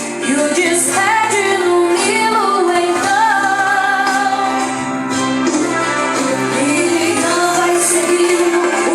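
A female voice sings a worship song in long held, gliding notes over steady instrumental accompaniment.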